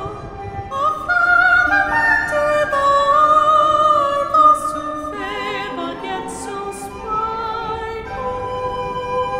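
Renaissance song for treble voice and consort: a woman's soprano voice sings with vibrato over sustained soprano and tenor recorders and plucked lutes.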